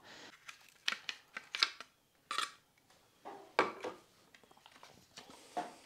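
Scattered light clicks, knocks and scrapes as a T65 rifle is handled and its two-piece plastic handguard taken off to bare the gas piston. The knocks come irregularly, a few louder ones among them.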